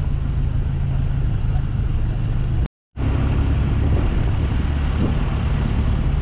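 Hindustan Ambassador on the move, heard from inside the cabin: a steady low engine and road rumble, broken by a moment of silence a little under three seconds in.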